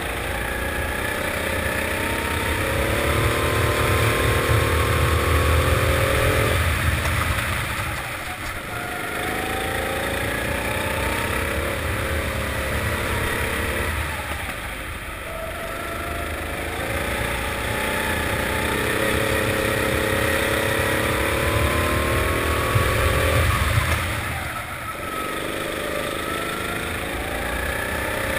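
Four-stroke rental kart engine heard from the driver's seat, revving up through the gears of each straight with a rising pitch, then falling away sharply three times as the throttle is lifted for corners.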